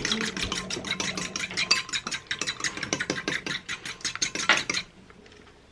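Fork beating raw eggs in a small bowl: rapid, even clicking of the fork against the bowl that stops about five seconds in.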